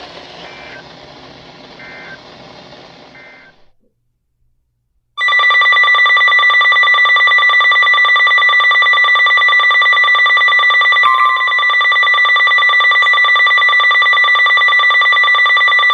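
Emergency Alert System attention tone: a loud, steady alert tone that starts about five seconds in and holds to the end, the signal that comes before a severe thunderstorm warning is read out. Before it, faint hissy noise with three short beeps fades to about a second of silence.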